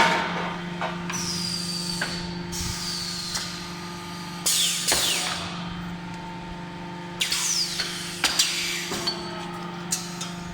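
Four-station pressure-type rotor die casting machine running: a steady machine hum, with two loud hissing bursts carrying falling whistles, one about halfway through and one about three quarters in, and a few sharp knocks.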